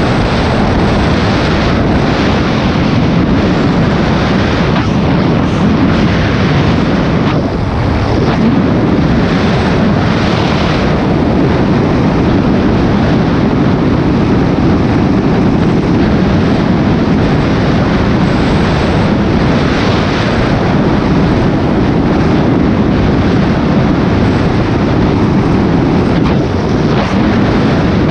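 Honda VTX cruiser riding at steady road speed: heavy wind rush on the microphone with the V-twin engine running underneath, steady throughout.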